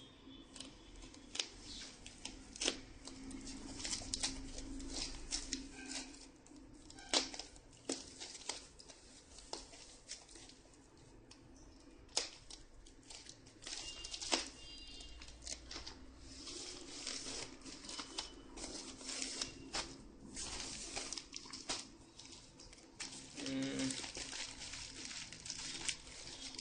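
White foam packing wrap being pulled apart, torn and cut open with a pocket knife: irregular rustling, crinkling and tearing, with many sharp crackles throughout.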